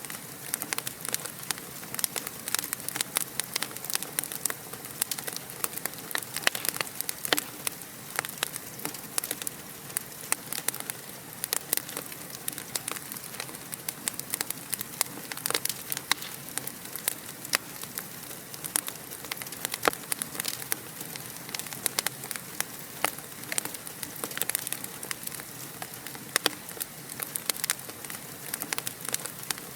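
Wood fire crackling in a fireplace: a dense, irregular stream of small pops and snaps over a steady hiss.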